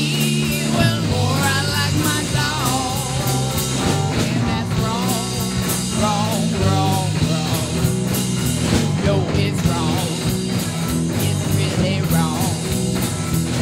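Live rock band playing an instrumental passage: a lead line bending and wavering in pitch over steady bass and drums.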